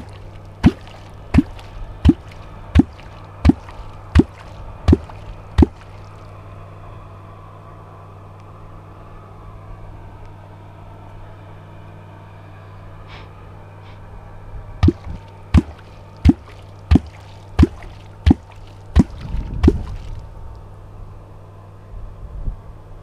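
A catfish kvok struck into the river surface in a steady rhythm, giving sharp 'kvok' plops about 0.7 s apart: a run of eight, a pause of some nine seconds, then another eight. The sound is made to call catfish up from the bottom to the bait.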